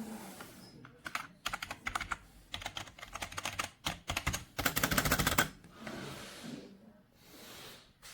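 Typing on a computer keyboard: irregular key clicks that speed up into a fast, dense flurry of keystrokes about five seconds in, followed by softer rustling.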